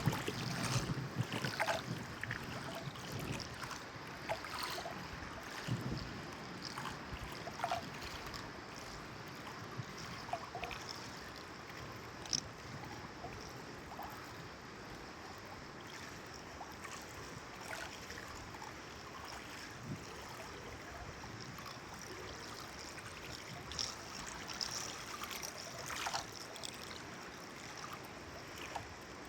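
Water lapping and trickling, with small irregular splashes and drips over a steady, even rush.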